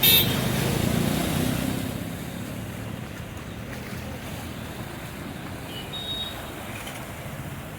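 A vehicle engine running, loudest at the start and fading over the first two seconds, then a steady wash of noise.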